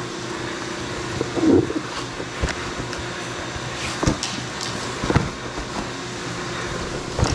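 Cardboard shipping box being opened and handled: a rustle about a second and a half in, then several sharp knocks and clicks, over the steady hum of a running CNC mill.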